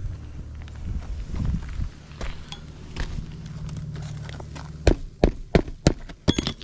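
A low steady hum, then a quick, uneven run of about seven sharp clicks and knocks in the last second and a half.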